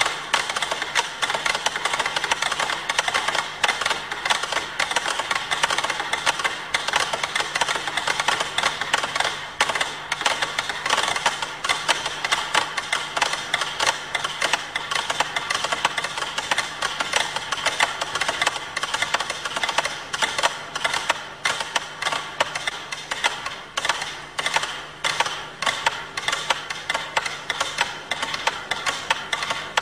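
About a hundred pyramid-shaped clockwork metronomes ticking at once at different tempos, making a dense, uneven mass of clicks. The ticking grows sparser and more separate in the second half as metronomes run down.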